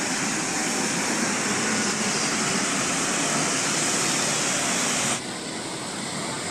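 Road traffic on a wet road: a steady hiss of tyres on wet pavement over a low rumble as a coach bus drives off. About five seconds in, it cuts abruptly to quieter traffic noise.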